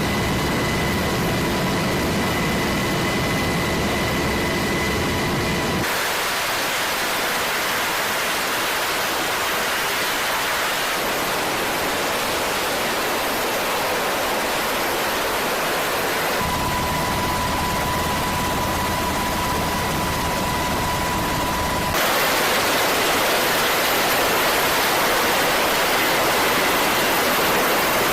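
Steady rushing noise like wind and ship machinery at sea, with a faint steady whine in places; its character changes abruptly three times. No gunfire is heard.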